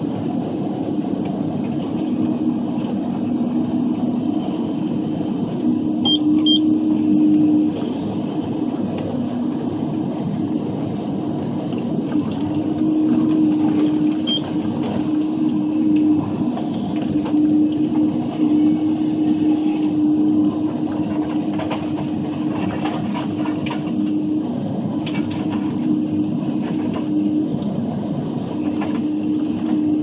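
Log processor's diesel engine and hydraulics working a Waratah 622B processing head, running steadily under load with a droning hum that steps between two pitches. A few faint knocks come in the second half.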